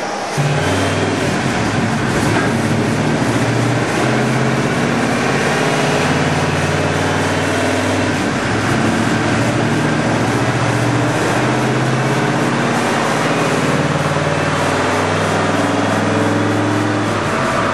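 Turbocharged Ford 5.0 V8 of a 1988 Mustang running, heard up close, its note shifting up and down in pitch.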